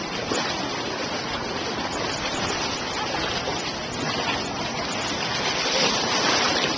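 Steady rushing and splashing of shallow seawater as people wade through a rock pool, a little louder near the end.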